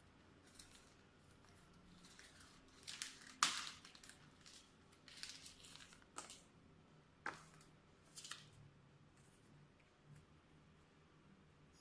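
Faint rustling and tearing of packaging being opened, with a few sharp clicks, the loudest about three and a half seconds in.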